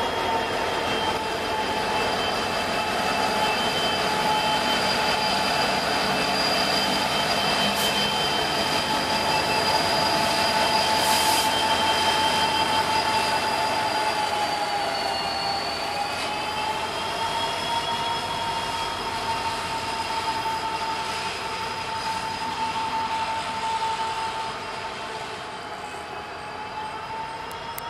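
Steel wheels of a Norfolk Southern maintenance-of-way train squealing against the rails as the train rolls slowly by: a steady high ringing squeal that dips in pitch and comes back about halfway through. It fades a little near the end as the train moves away.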